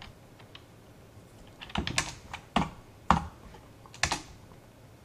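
Computer keyboard keys pressed in a few separate clicks and short runs, between about two and four seconds in.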